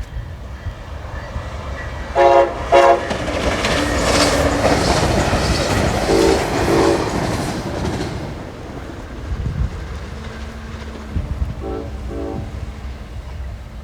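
A passenger train, hauled by a Siemens SC-44 Charger locomotive, sounds two short horn blasts and passes, its wheels clattering over the rail joints, loudest a few seconds in. More pairs of short horn toots follow as it goes by, lower in pitch after it passes.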